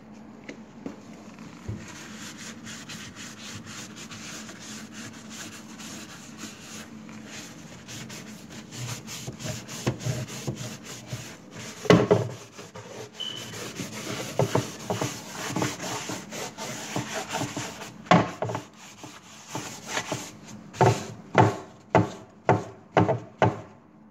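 Solvent-dampened paper towel scrubbing paint overspray off a wooden cabinet surface, in repeated rubbing strokes. Near the end the strokes turn louder and regular, about two a second.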